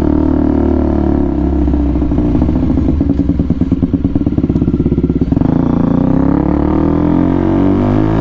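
125cc motorcycle engine running through a newly fitted aftermarket exhaust while riding. The steady engine note turns into a choppy, pulsing low-rev sound in the middle as the bike slows, then rises again as the throttle opens, a little over five seconds in.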